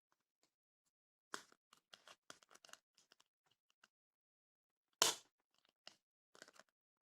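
Adhesive hooks and their packaging being handled: a run of small clicks and rustles, then one sharper, louder click about five seconds in, followed by a few softer ones.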